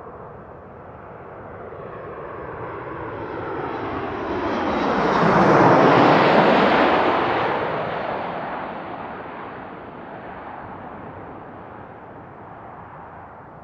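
Boeing 737 MAX 8's CFM LEAP-1B turbofan engines on final approach as the jet flies low overhead. The engine noise swells to its loudest about six seconds in, then fades with a falling pitch as the aircraft passes and moves away toward the runway.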